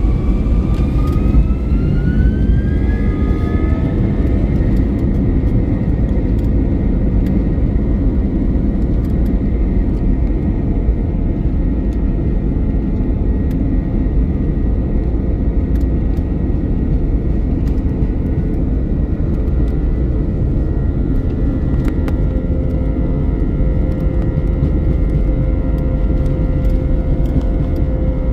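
Airplane during its takeoff: a heavy, steady rumble with a whine that rises in pitch over the first few seconds and then holds as a steady high tone.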